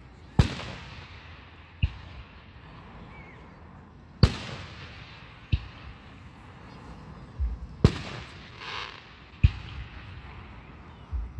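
Aerial firework shells bursting: six sharp booms a second or two apart, the loudest ones trailing off in a long echo.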